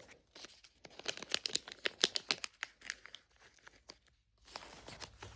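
Thin plastic packaging being crinkled and torn open by hand: a run of sharp crackles, a brief pause, then a longer tearing rasp near the end.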